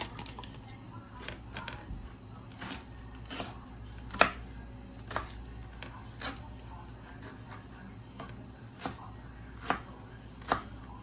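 Kitchen knife cutting vegetables on a cutting board: separate sharp knocks of the blade meeting the board, unevenly spaced at roughly one a second.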